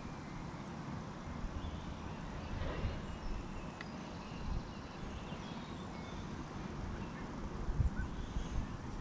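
Faint outdoor ambience: a steady low rumble with faint bird calls, and a few soft knocks near the end.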